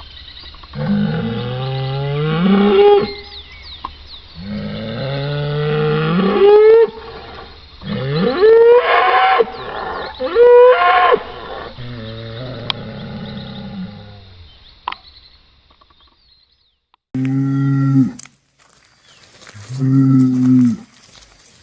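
Cattle mooing and bellowing: a string of long calls, several rising in pitch, then after a short pause two shorter, steadier moos near the end.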